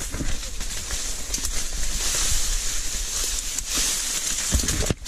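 Dry reeds and grass rustling and crackling as they brush against the body and gun of someone pushing through thick cover on foot, with a low rumble underneath and a thump near the end.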